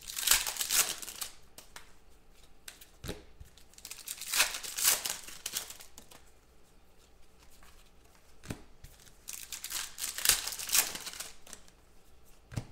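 Foil trading-card pack wrappers being torn open and crinkled by hand, in three bouts of rustling a few seconds apart, with quieter handling of cards between.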